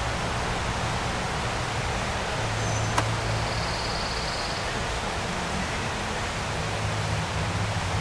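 Steady rushing noise with a low hum underneath, and a single sharp click about three seconds in.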